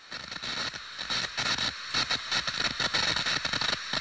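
TV-static glitch sound effect: a loud, hissing, buzzy noise that stutters and crackles irregularly many times a second.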